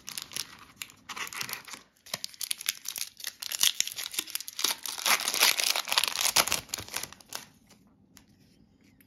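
Foil trading-card pack being torn open and its wrapper crinkled in the hands, a run of crackling tearing noise that is loudest in the middle and stops about seven and a half seconds in.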